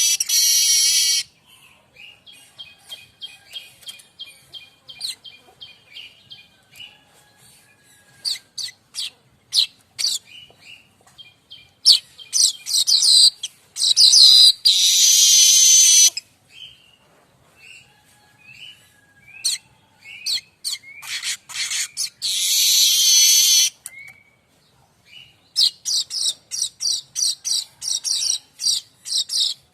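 Streaked weaver (manyar kembang) singing: runs of quick high chattering notes broken four times by long, loud, harsh wheezing buzzes.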